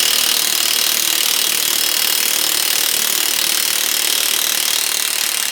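Impact wrench hammering steadily on a rusted, heat-soaked hub bolt to break it loose, with a fast rattling pulse; it stops abruptly near the end.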